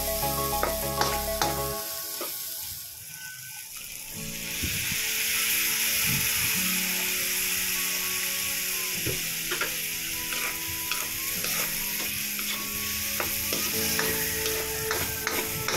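Pork, onion and tomato frying in a wok, sizzling steadily, with a spatula scraping and clicking against the pan as the food is stirred. The sizzle grows louder about four seconds in.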